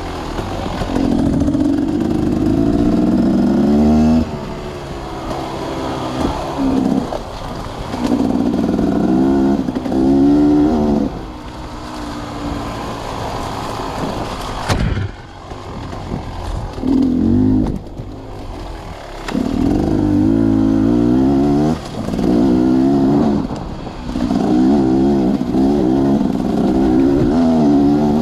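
Sawmill machinery running: an engine note that wavers in pitch comes and goes in loud spells of a few seconds, between quieter stretches. There is one sharp knock about fifteen seconds in.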